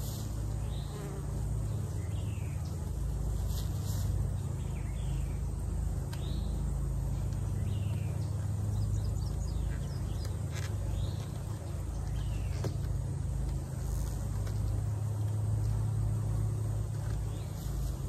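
Honeybees buzzing in a steady, continuous hum around an opened hive, with short high chirps repeating through it.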